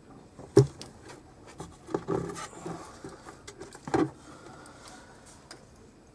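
Handling noise: light scraping and rustling with a few sharp knocks. The loudest knock is about half a second in, and others come near two and four seconds in.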